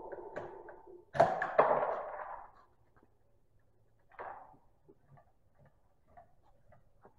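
Echo of a rifle shot fading out, then two sharp metallic clacks about a second in as the bolt of the bolt-action rifle is worked, and one more clack about four seconds in.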